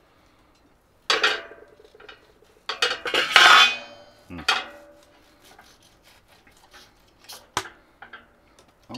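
Metal knife and fork clinking and scraping on a plate as steak is cut. The loudest part is a ringing metallic clatter about three seconds in, with lighter clinks and ticks after it.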